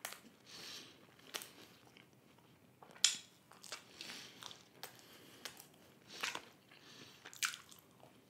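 Close-miked mouth sounds of a man eating cheese-burst pizza: wet chewing broken by short crisp bites into the crust, the sharpest bite about three seconds in.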